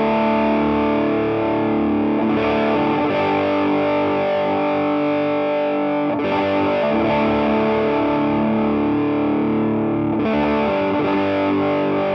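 Electric guitar, a 1973 Greco Les Paul copy, played through a Vox AC30 amp driven by an overdrive pedal. Distorted chords are struck about every four seconds and left to ring.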